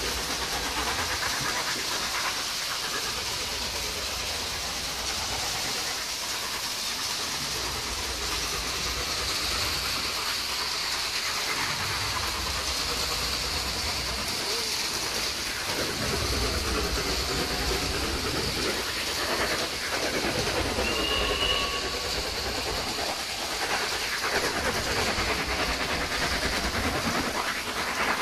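1950s Hornby clockwork tinplate train running on its track: the wound spring motor and wheels on the rails make a steady whirring, rattling hiss, heard up close from on board.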